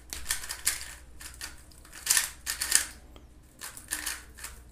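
Stickerless plastic 3x3 speed cube being turned by hand: quick runs of layer turns clacking in about three short bursts, with brief pauses between them.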